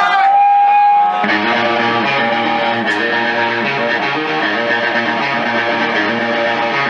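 Live rock band's electric guitar starting a song: a single high held tone for about a second, then a repeated distorted guitar riff.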